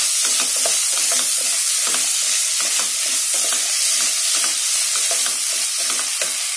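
Chopped onions and tomatoes with ginger-garlic paste sizzling in oil in a nonstick pan while a wooden spatula stirs them, scraping across the pan in quick repeated strokes over a steady frying hiss.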